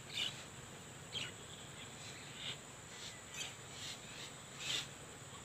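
Birds chirping in short, scattered calls, the loudest about a quarter second in and near the end, over a faint steady high-pitched insect drone.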